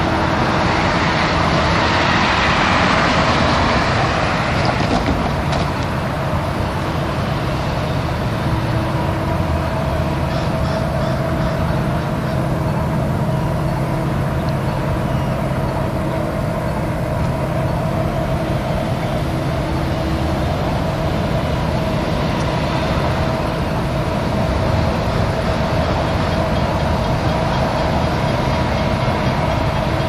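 Train approaching from a distance: a steady low diesel locomotive rumble with a held humming tone over it, mixed with road traffic; a passing vehicle is loudest in the first few seconds.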